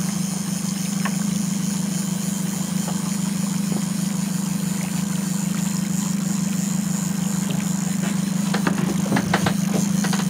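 Boat's motor running steadily with a low, even hum and a hiss above it, with a few brief clicks and knocks near the end.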